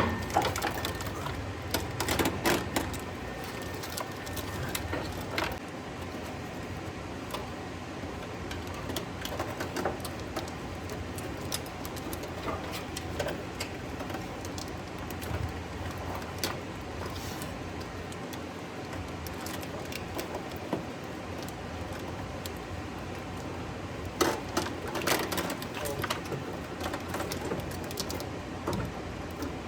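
Scattered clicks, taps and light rattling of handling work, with denser clusters of knocks near the start and again about 24 seconds in.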